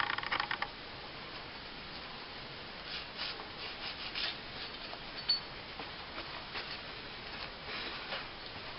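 A cloth rag rubbing and wiping a metal pistol part in short, faint, scattered strokes. A louder scrubbing noise stops within the first second.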